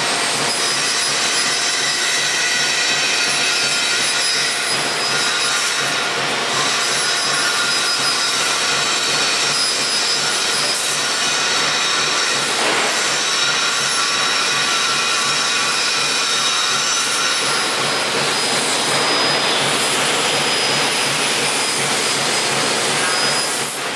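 CNC laser cutting machine running: a steady, loud rushing hiss with thin high whines over it, like the assist gas and drives of a laser cutting steel sheet, with a brief swoosh about halfway through.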